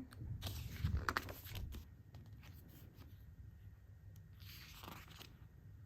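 Photo book being handled and its pages turned: paper rustling with light clicks, loudest about a second in, then a soft page swish about four and a half seconds in.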